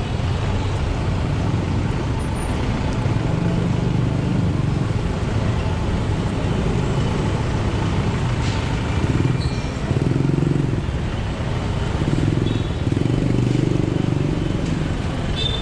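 Steady city street traffic noise: a continuous wash of passing cars and engines, heard from a moving bicycle.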